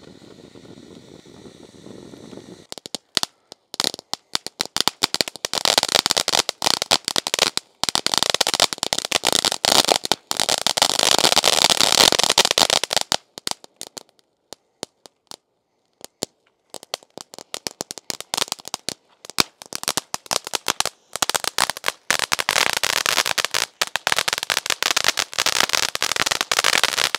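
Black Cat firework fountain crackling: a dense, rapid crackle of many small pops from its crackling stars. It begins with a softer hiss and breaks off for a few seconds about halfway before starting again.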